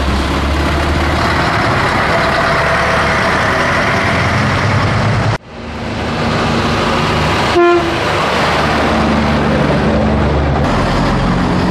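Diesel engines of vintage Scania trucks running as they drive slowly past one after another, with a short horn toot about two-thirds of the way through.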